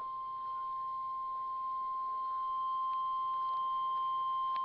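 NOAA Weather Radio 1050 Hz warning alarm tone: a single steady, unbroken beep, the alert tone that switches on tone-activated weather radio receivers during the weekly test.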